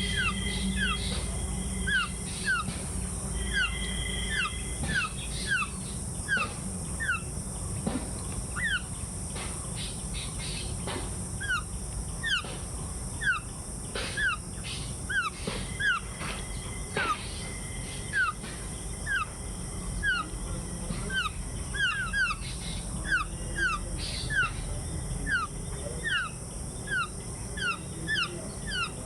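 Songbirds calling outdoors: a run of short, quick falling notes, one or two a second, with a few held whistled notes in the first seconds. A steady high hiss sits under it.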